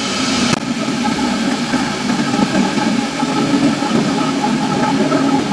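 Electric kettle heating water toward the boil: a steady rumbling hiss with a fine bubbling texture. The rumble shows the repaired heating element is working.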